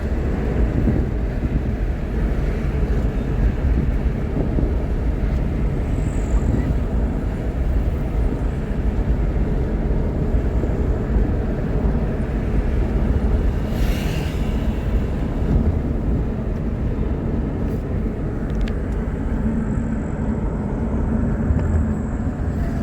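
Steady low rumble of a vehicle on the move, engine and road noise together, with a brief hiss about fourteen seconds in.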